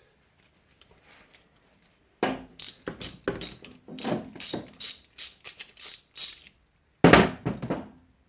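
Socket ratchet clicking in short strokes, about two or three a second, as the pedal's axle nut is unscrewed with an 8mm deep socket. A louder clatter of metal follows near the end.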